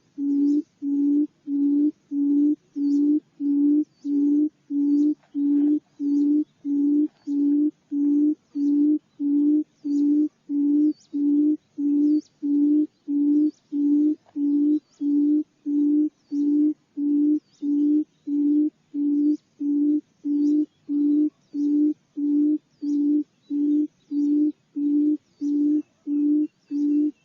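Barred buttonquail's low hooting call, short even hoots repeated about three every two seconds without a break. It is a recorded call of the kind played back to lure the birds in.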